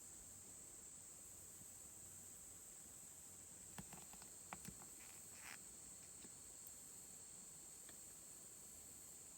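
Near silence: a faint steady high-pitched hiss, with a few soft clicks and rustles a little under halfway through.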